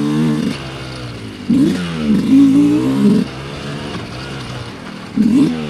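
Dirt bike engine on a trail ride. It runs at low throttle and is opened up twice: a burst lasting nearly two seconds that starts about a second and a half in, and another near the end.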